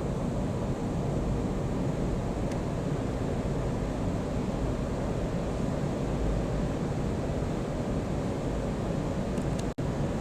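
Steady low background rumble with no distinct events, broken by a split-second gap near the end.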